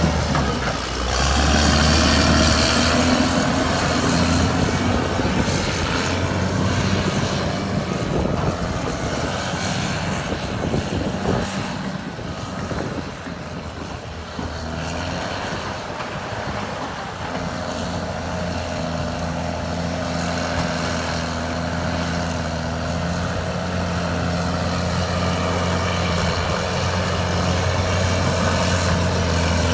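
CAT D6R2 bulldozer's diesel engine running under load. The engine is loudest at the start, eases off around the middle, where there is a stretch of clatter, and builds again toward the end.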